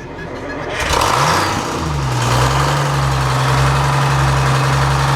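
Sawmill engine starting after standing unused a long while. It catches about a second in, its speed rises briefly, then it settles into a steady idle.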